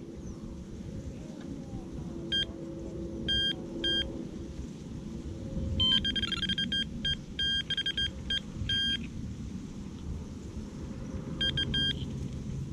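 Electronic carp bite alarm on a rod pod beeping: a few single beeps, then a quick run of beeps in the middle and a short burst near the end, as the line moves through the alarm. Wind rumbles on the microphone underneath.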